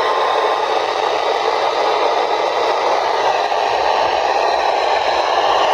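Weather radio receiver giving steady loud static hiss with no station coming through: the signal has dropped out or the set is tuned between stations.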